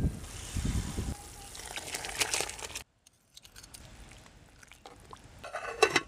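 Cloth rustling as it is handled over a steel pot lid, with a few sharp clinks of the metal lid near the end. The sound drops out briefly in the middle.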